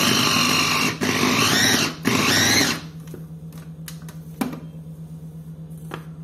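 Kenwood electric mini chopper (hand-blender motor unit on a MultiMayo chopper bowl) run in three short pulses, chopping a cooked chicken and lentil mixture, its whirr shifting in pitch in the last pulse. A single sharp click follows a little over four seconds in.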